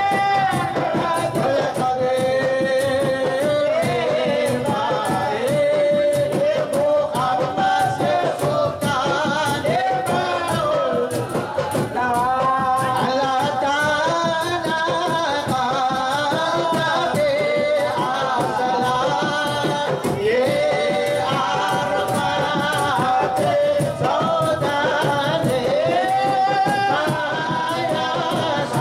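A group of men singing a Rifa'i devotional chant together, with a steady beat of hand-held frame drums under the voices.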